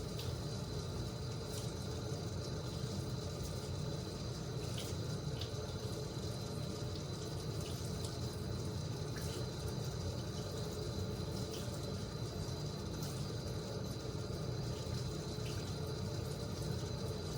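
Water running steadily from a sink faucet as soapy hands are rinsed under the stream.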